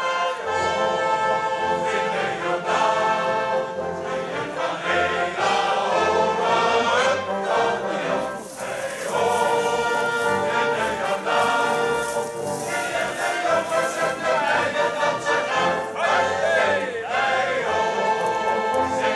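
Men's shanty choir singing in harmony, accompanied by a wind band with brass, including tubas and trombones.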